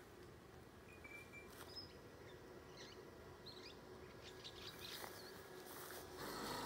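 Quiet outdoor ambience with faint, scattered bird chirps.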